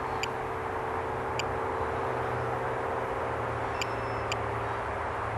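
Tinyhawk 2 Freestyle micro FPV drone's small brushless motors humming steadily at a distance over outdoor background noise, with four short high chirps scattered through it.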